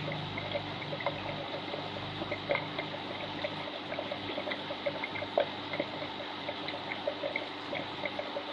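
Aquarium water trickling steadily with many small irregular splashes, as from the tank's filter circulation. A low hum under it fades out a few seconds in.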